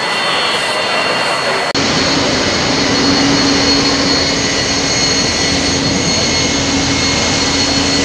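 Fire hoses spraying water onto a smouldering, burnt-out bus: a loud, steady rush with a low hum under it, likely the fire engine's pump. The sound changes abruptly about two seconds in.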